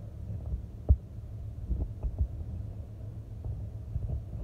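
Scattered light knocks and clicks from gloved hands working at the clutch switch wiring under a truck's dashboard, the clearest about a second in, over a low steady rumble.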